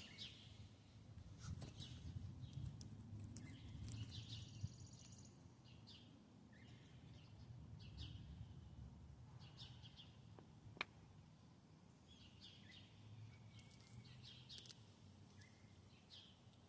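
Quiet outdoor ambience with faint, scattered bird chirps over a low background rumble, and a single sharp click about eleven seconds in.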